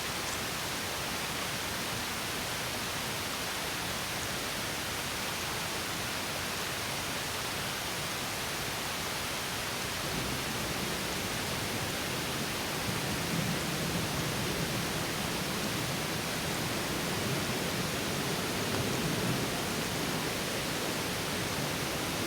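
Small stream spilling over a low drop as a mini waterfall: steady rushing and splashing of water, a little fuller and lower from about halfway through.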